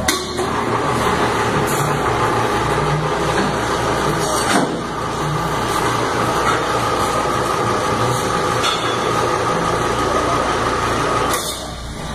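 Steady running noise from a machine or engine, with a faint steady hum, stopping abruptly shortly before the end.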